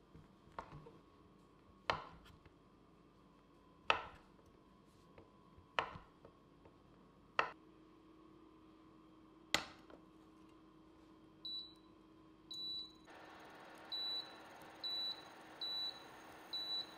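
A kitchen knife slicing through a block of tempeh and striking the wooden cutting board, a sharp cut every two seconds or so. Then the Hock induction cooktop's touch panel beeps six times as its buttons are pressed, and about halfway through the beeps its cooling fan starts with a steady whir.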